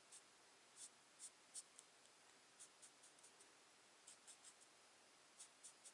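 Alcohol marker (Stampin' Blends) tip stroking over cardstock while a stamped image is coloured in: faint, short scratchy strokes in irregular little clusters.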